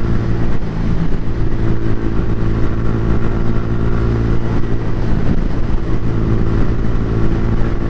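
Suzuki Gixxer 150 Fi's single-cylinder engine running at a steady, unchanging pace while the motorcycle is ridden, under a steady rush of wind noise.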